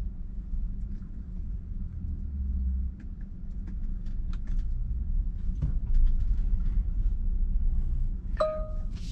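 Tesla electric car rolling slowly in reverse, heard from inside the cabin: a low steady rumble with scattered light ticks. A short electronic chime of two steady tones sounds near the end.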